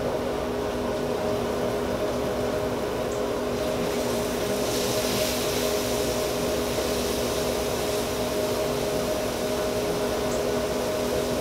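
A steady mechanical hum from a fan or appliance, with a few steady tones in it. A brief soft hiss rises and fades about five seconds in.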